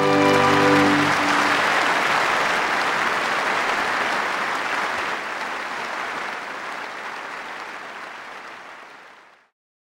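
An orchestra's final held chord dies away in the first second or so as a large audience applauds. The applause goes on steadily, slowly fades, and cuts off just before the end.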